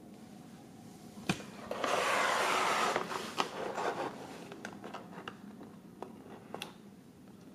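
Plastic blind-bag pouch crinkling as it is picked up and handled: a sharp click about a second in, a loud rustle for about a second, then lighter crinkles and taps.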